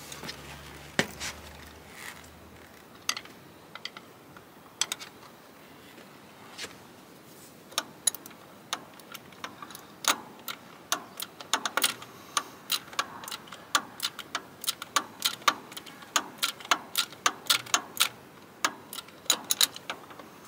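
Ratchet spanner clicking as a fuel pump mounting bolt is tightened a click at a time in a cramped spot: scattered single clicks at first, then quick runs of clicks from about halfway.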